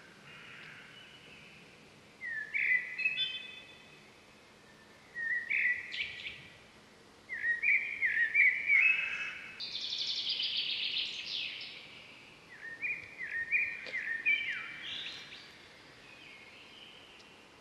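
Wild songbird calling in short bursts of quick chirping notes every few seconds, with a faster buzzy trill in the middle, over a faint outdoor background.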